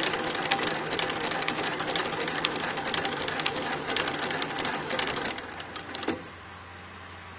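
Industrial shoe sole stitching machine running, a fast clatter of needle strokes as it stitches around the edge of a rope sole. The stitching stops suddenly about six seconds in, leaving a low steady motor hum.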